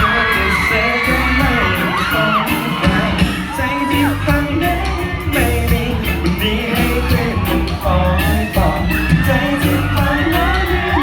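Live pop band playing a song's intro with a steady bass-heavy beat, while the audience yells and whoops over it.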